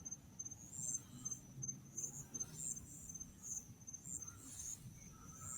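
Faint insects chirping: a steady high-pitched trill with brighter chirps pulsing over it about twice a second.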